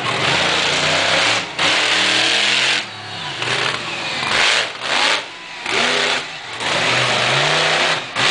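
Monster truck engine revving hard in repeated bursts of throttle, its pitch rising and falling, with short dips between the bursts.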